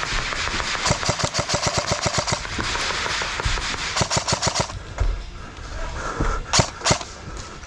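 Airsoft guns firing in rapid bursts, a fast rattle of evenly spaced shots that stops and starts again. Near the end come two sharp single cracks, the loudest sounds.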